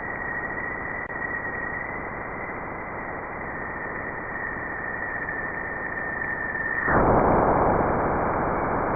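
Space-sound recording of the kind made from spacecraft radio data: a steady static hiss with a high whistle held above it. About seven seconds in the whistle stops and the hiss grows louder.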